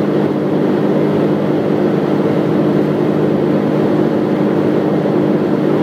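Steady drone and road noise inside a car cruising at an even speed on an expressway: a constant low engine hum over the rush of tyres.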